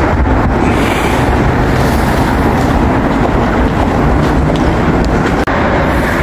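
Busan Metro Line 2 subway train running, a steady, even rumble of wheels on rail and traction motors.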